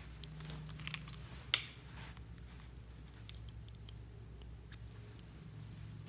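Small plastic clicks and taps from handling a glitter glue bottle as its cap is worked off, with one sharper click about a second and a half in.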